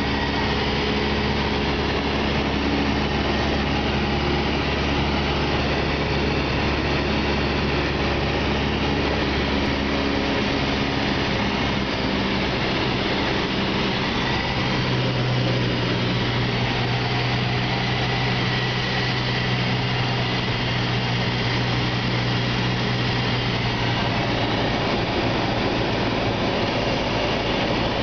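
Cessna 172's piston engine and propeller running, a steady drone heard from inside the cabin. Its low tone changes about halfway through, a shift in engine power.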